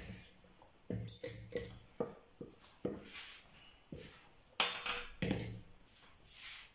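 A utensil clinking and scraping against a bowl of whipped cream: about ten irregular knocks and clinks, the loudest two about five seconds in.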